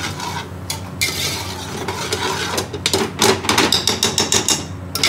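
A metal spoon stirring rice in a large aluminium pot, scraping around the pot and knocking against its sides, with a fast run of knocks from about three seconds in.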